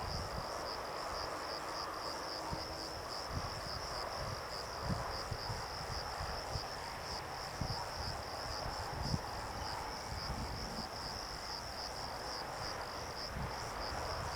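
Insects chirring in a steady, high, rapidly pulsing chorus, with irregular low rumbles underneath.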